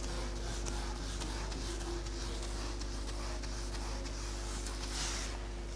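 A felt duster wiping across a whiteboard, a soft rubbing swish with a louder stroke about five seconds in, over a steady low hum.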